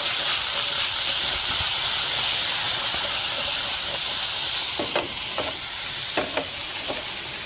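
Shallots, carrots and sausage pieces sizzling hard in a hot frying pan over a gas burner with a splash of red wine, a steady loud hiss.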